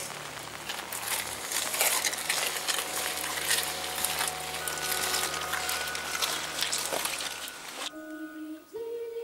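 Rain falling on pavement, a dense steady patter, with soft background music underneath. About eight seconds in the rain cuts off, leaving only a few quiet held music notes.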